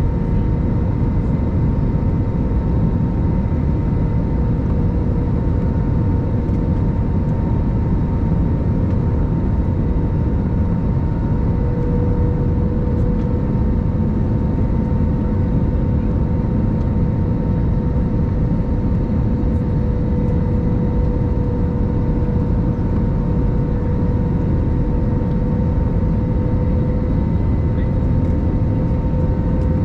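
Steady roar of an Airbus A321-200 airliner cabin, engine and airflow noise heard from a passenger seat, with a steady whine over the rumble.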